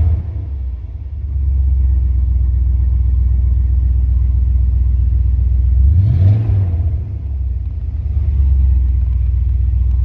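A 1988-1998 Chevy/GMC pickup's gasoline engine idling steadily on a freshly fitted ignition coil and distributor cap, heard from inside the cab. It is briefly revved and settles back twice, once right at the start and once about six seconds in.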